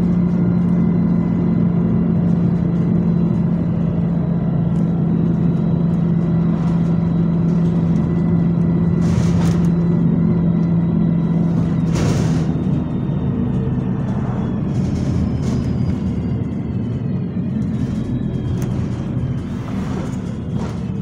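Bus engine and drivetrain heard from inside the cabin on the move: a steady low hum with a fainter whine above it. About halfway through, the hum stops and the running note drops a little quieter.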